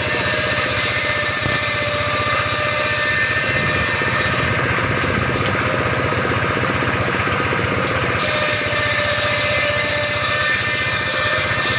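Circular sawing machine (mesin sirkel) used for ripping roof battens, running steadily with a low, even motor drone; the high hiss drops away for a few seconds in the middle.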